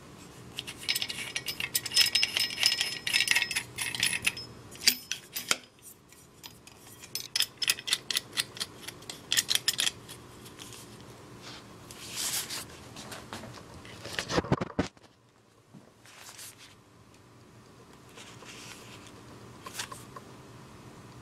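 Steel parts of a folding shovel clicking and clinking as its head and securing nut are worked: quick runs of sharp metallic clicks with a slight ring in the first half, a heavier knock about two-thirds through, then only a few faint clicks.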